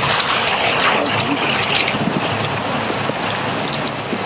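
Steady rushing of water falling over an iced-up waterfall, a continuous even roar with a few faint ticks.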